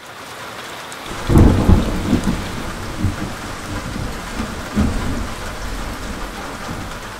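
Steady rain with rolling thunder: a heavy rumble builds about a second in, and weaker rumbles follow twice.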